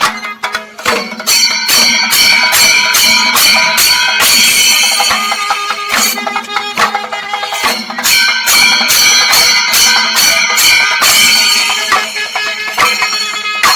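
Singari melam ensemble playing loud: chenda drums beaten in a fast, driving rhythm with ilathalam hand cymbals clashing and ringing.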